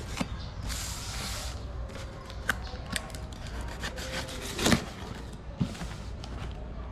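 Knife blade slitting and scraping along packing tape on a cardboard box, a hissy rasp about a second in, then a run of short scrapes and knocks against the box, the loudest a little before five seconds in.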